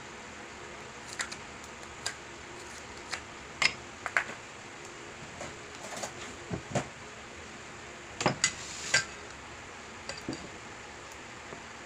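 Ice cubes dropped into a clear plastic cup of mango sago drink, giving irregular knocks and clinks against the cup, with a denser cluster of knocks about eight seconds in as the cup is handled.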